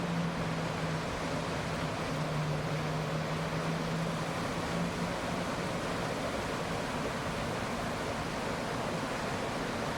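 Small mountain stream and waterfall, a steady rush of water. A low steady hum underneath fades out about halfway through.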